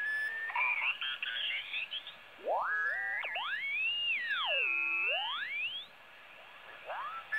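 Ten-Tec SP-325 HF receiver in LSB mode being tuned across the 40-metre band: heterodyne whistles and garbled sideband signals slide up and down in pitch as the dial turns. In the middle one long whistle rises, arches over and falls away.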